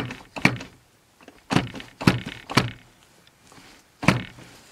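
Center punch marking bolt-hole positions on a metal casting: about six sharp knocks, unevenly spaced, with a longer gap before the last one near the end.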